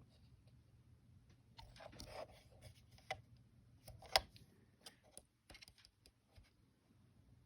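Faint handling noises: scattered clicks and light knocks with a brief rustle, and one sharper click about four seconds in.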